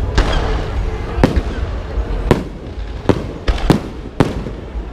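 Fireworks going off: about seven sharp bangs at uneven intervals, several of them close together in the second half, over a continuous crackling din.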